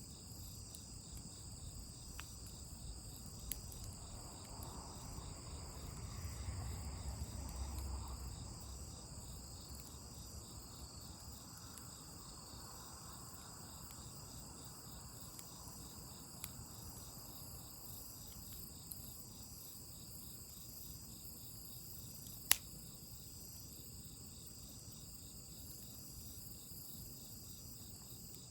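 A steady chorus of crickets chirping, a continuous high pulsing trill. A brief low rumble swells a few seconds in, and a few sharp pops sound, the loudest about 22 seconds in.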